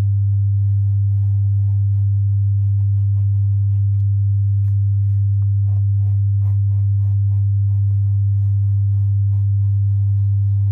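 A loud, steady low hum, one pure tone, with the faint scratching of a pen writing on notebook paper beneath it in short, irregular strokes.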